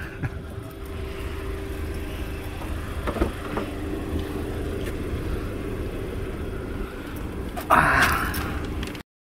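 A car door is unlatched and swung open about three seconds in, a single click over a steady low rumble with a faint hum. Near the end a louder rush of noise lasts about a second, then the sound cuts off.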